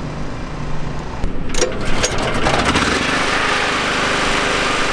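A low steady engine hum, then a few sharp clicks about a second and a half in, after which a small motor runs steadily and louder.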